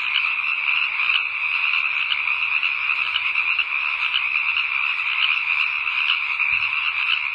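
Dense, steady chorus of many frogs calling at once, the calls overlapping into a continuous high-pitched trilling.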